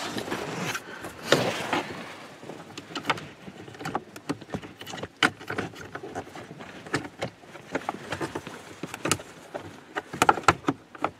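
Irregular plastic clicks and knocks with some rustling, from the cabin air filter cover behind a 2020 Ram 1500's glove box being snapped back into place. The clicks come thicker near the end.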